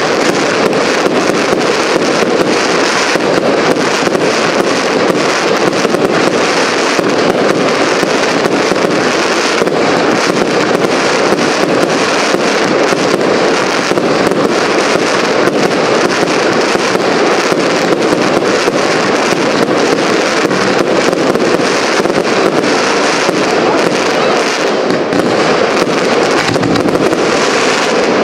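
Fireworks display going off without pause: a dense, steady crackling of many small bursts from crackling glitter stars, loud and unbroken.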